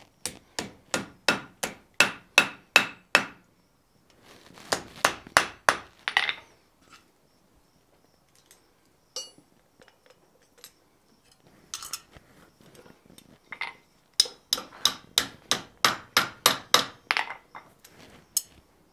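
Blacksmith's hand hammer striking a hot steel bar on the anvil, in runs of quick blows at about three a second: one run at the start, a shorter one around five seconds in, and a longer one near the end, with a few light clinks between.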